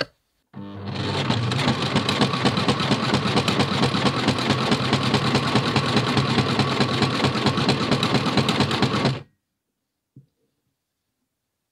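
Electric domestic sewing machine running steadily for about nine seconds, stitching a folded fabric strip with a fast, even rhythm of stitches, then stopping abruptly.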